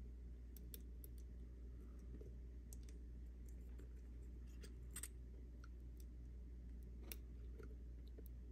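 Faint, scattered small clicks and taps from a soldering iron tip and solder wire working a resistor lead on a circuit-board joint, the sharpest about five and seven seconds in, over a steady low hum.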